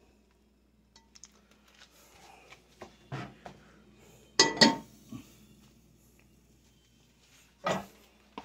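Stainless steel pot clattering down onto a gas stove's grate, the loudest clank about four and a half seconds in with a short metallic ring. Lighter knocks come before it, and another clunk comes near the end.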